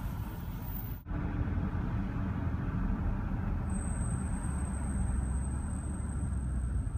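2014 Range Rover L405 driving, with a steady low road rumble; a thin, high-pitched brake squeal sets in a little past halfway and holds steady. The owner takes this squeal as the sign that the pads and rotors are due for replacement again.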